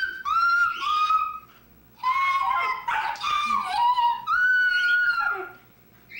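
Old English Sheepdog howling in a run of long, high, wavering notes that step up and down in pitch, breaking off briefly about a second and a half in and again near the end.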